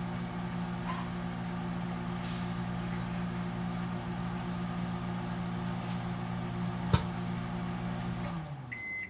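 Microwave oven running with a steady hum while cooking oysters in the shell, with a single sharp click about seven seconds in. Near the end the hum winds down as the oven stops, and the first of its repeating end-of-cycle beeps sounds.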